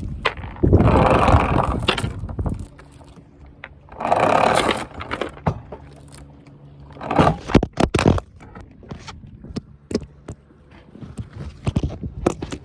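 Two rushes of wind on the microphone, then a string of sharp metal knocks and clanks, mostly around the middle, as the anchor and its galvanized chain are hauled aboard. A faint steady engine hum runs underneath.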